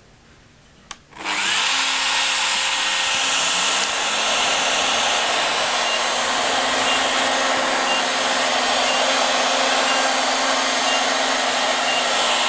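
Shaper Origin handheld CNC router and its dust extractor switching on with a click about a second in, then running loud and steady while the router plunges and engraves automatically.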